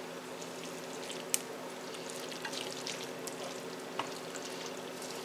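A spoon stirring spaghetti through a thick, creamy cheese sauce in a skillet: soft, wet squishing and scraping, with two light clicks of the spoon against the pan. A faint steady hum runs underneath.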